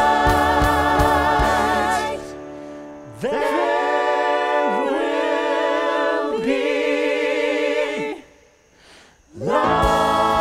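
A musical theatre cast sings in close harmony, holding chords with vibrato over a steady band beat. About two seconds in, the beat stops and the voices break off briefly, then return alone on held notes that bend downward at the ends of phrases. The voices fall silent for about a second, and near the end the full ensemble and band come back in together.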